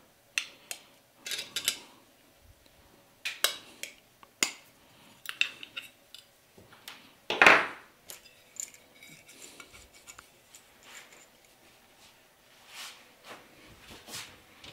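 Needle-nose pliers working the small tabs on a steel outlet cover plate: scattered sharp metal clicks and clinks, with one louder clank about halfway through.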